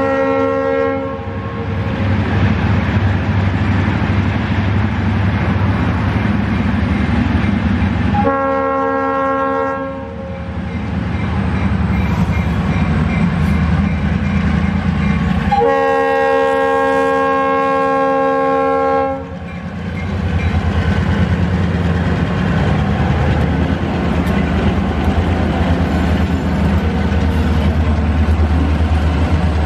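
Diesel freight locomotive's horn sounding three blasts, each a chord of several notes: one ending about a second in, a short one about eight seconds in, and a longer one at about sixteen seconds. Under the horn run the steady rumble of the locomotive's engine and the clatter of the train's wheels on the rails.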